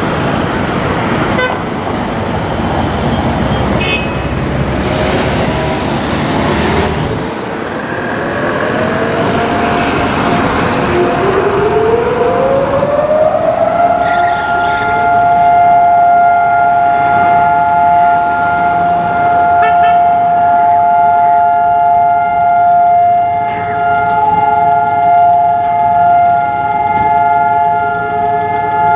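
Road traffic, then about eight seconds in civil-defence air-raid sirens wind up, several at slightly different pitches, rising and settling into one steady held tone: Israel's two-minute memorial siren for Holocaust Remembrance Day.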